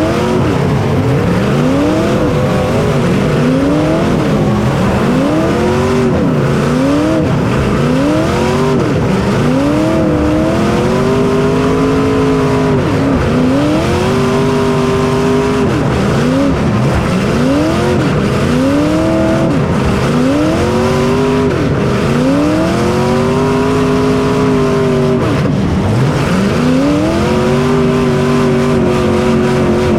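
Onboard sound of a racing engine revving up and down over and over: the pitch climbs, holds steady for a moment, then drops, a cycle every two seconds or so, over a constant rushing noise.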